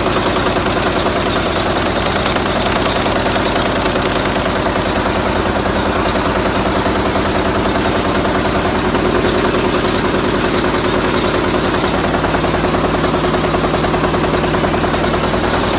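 Artificial grass production machinery running steadily, a loud, fast, even mechanical clatter with no pauses.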